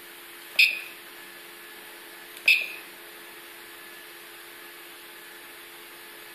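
Steady hum with a few held low tones from a homebuilt H-belt RepRap 3D printer standing at rest, broken by two sharp clicks that ring briefly, about half a second and two and a half seconds in.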